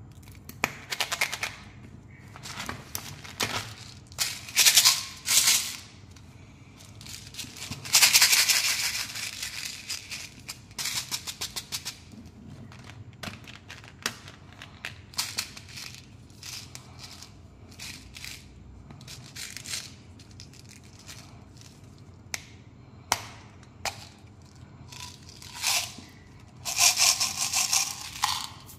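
Hands handling small plastic candy containers: sharp clicks and snaps of caps and lids, with bursts of small hard candies rattling. Near the end a longer rattle as the sugar-coated candies pour out into a palm.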